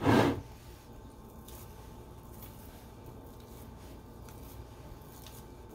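Hands pressing and rocking over oiled pizza dough on a cast-iron pizza pan: faint, soft squishing and rubbing with a few light taps.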